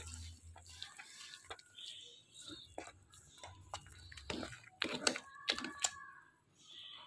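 Spoon stirring thick, bubbling carrot kheer in a pan: wet squelching and scraping with scattered clicks, the loudest knocks about four to six seconds in. The kheer has cooked down to a thick, nearly finished consistency.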